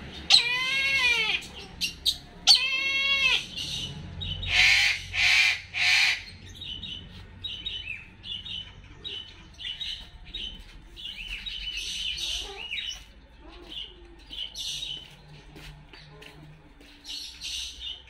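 Brahminy kite calling: two quavering runs of rapid rising-and-falling notes in the first few seconds, then three loud, harsher cries, followed by scattered fainter chirping notes.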